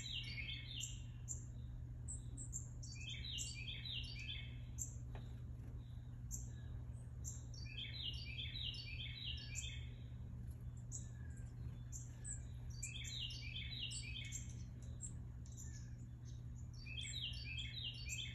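Birdsong: one songbird repeats a short phrase of rapid notes about every four to five seconds, with scattered higher chirps from other birds over a steady low rumble.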